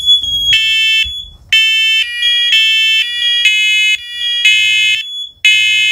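Two smoke and carbon monoxide alarms, a First Alert PC900V and a 10-year talking unit, sounding their test alarm together. One gives a single high, shrill tone; the other gives repeated loud, piercing beeps about half a second long with short gaps. The single tone stops about a second and a half in, leaving the pulsing beeps.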